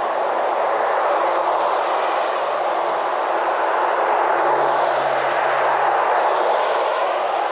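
Steady rushing street noise of traffic on a wet road, with a faint engine hum about four and a half seconds in.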